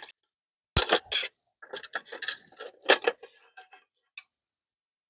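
Tableware and food containers being handled: a run of small clicks, taps and clatters, with sharper knocks about a second in and near three seconds, dying out before four seconds.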